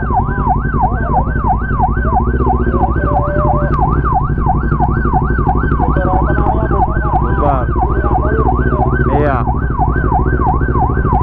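Police car siren on a fast yelp, its pitch sweeping up and down about three times a second without a break, over the steady running of a motorcycle engine.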